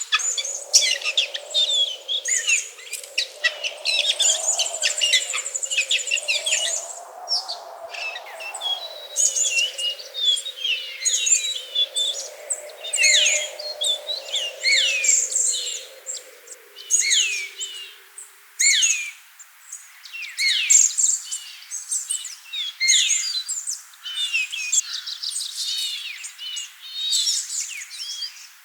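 Several small birds chirping and calling, with many quick downward-sweeping notes and a brief high trill. Underneath is a faint low hum that fades out about two-thirds of the way through.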